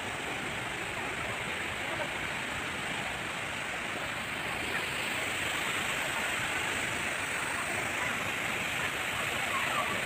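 Waterfall rushing: a steady, even wash of falling water that grows slightly louder about halfway through.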